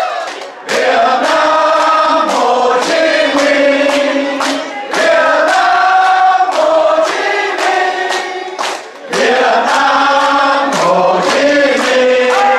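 A large group of men and women singing a song together in unison, to a steady beat, with short breaks between phrases.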